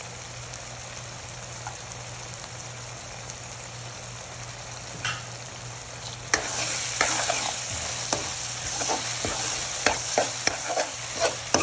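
Pumpkin, tomato and onion frying in oil in a deep black pan with a steady sizzle. About six seconds in, a steel spoon starts stirring, scraping and clicking against the pan, and the sizzle grows louder.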